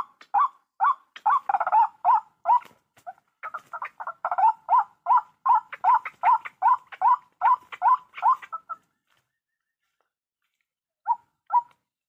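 White-breasted waterhen (ruak-ruak) calling: a rapid, even series of short rising notes, about two to three a second, which stops about nine seconds in, followed by two more notes near the end.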